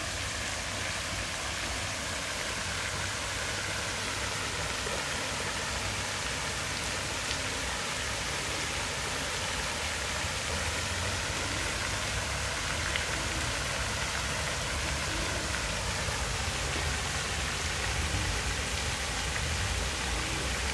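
Row of small vertical fountain jets splashing steadily into a shallow pool, a constant even rush of falling water.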